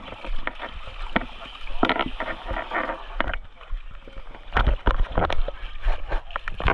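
Kayak and paddles knocking and clattering in a string of sharp knocks, with a loud low rumble of wind on the microphone about halfway through and voices in the background.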